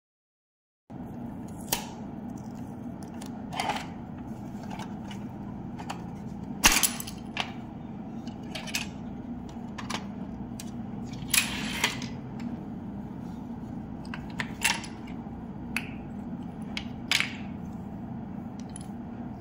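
Scattered clicks, knocks and short scrapes of a cordless string trimmer being handled and worked on, over a steady low hum. The sound starts abruptly about a second in, and the loudest knocks fall near the middle.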